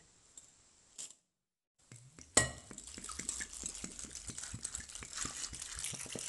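Water poured from a bottle into a glass bowl of dried chickpeas for soaking: a steady splashing pour over the chickpeas that starts with a sharp click about two seconds in.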